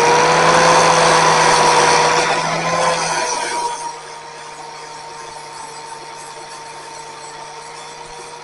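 Electric power tool running steadily at full speed. For the first three seconds or so, loud grinding noise from the tool working the old cleaver's metal. It then falls quieter as the tool keeps spinning freely with a steady whine.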